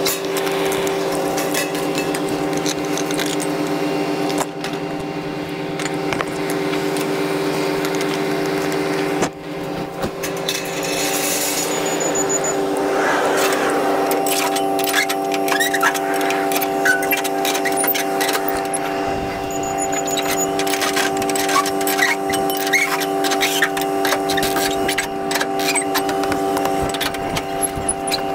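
A steady mechanical hum holding several fixed pitches, with scattered metallic clicks and clinks over it; a higher pitch joins the hum about halfway through.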